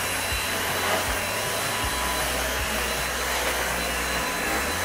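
A fan-driven electric motor, like a vacuum cleaner's, running steadily: an even whooshing noise with a faint high whine.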